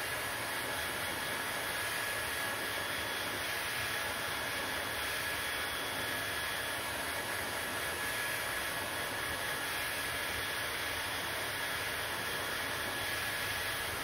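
Handheld hair dryer running steadily: a constant rush of blown air with a thin, steady high whine from its motor.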